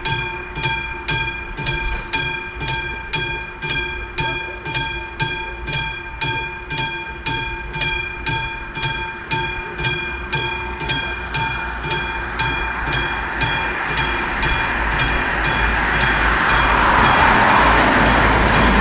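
A classic level-crossing warning bell rings in even strokes, about two a second, signalling that the crossing is active for an approaching train. From about halfway a broad rushing noise grows steadily louder and is loudest near the end.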